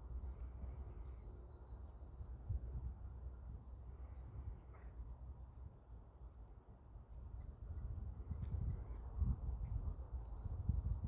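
Small songbirds chirping faintly in short high notes over a low rumble of wind on the microphone, which grows louder near the end.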